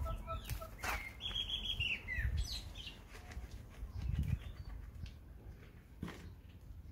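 Birds calling: short notes at the start, then a high whistled call that drops in pitch a second or so in. Compost soil is poured from a plastic pot into a planter and pressed down by hand, making a low rustle, heaviest about two and four seconds in.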